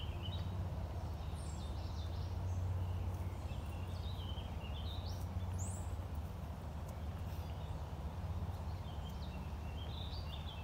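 Birds singing: short chirping phrases every second or two, over a steady low rumble.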